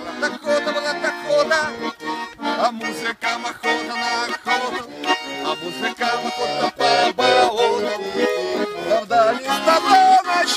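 Button accordion playing an instrumental passage of a folk-style song, with sustained chords and a moving melody line.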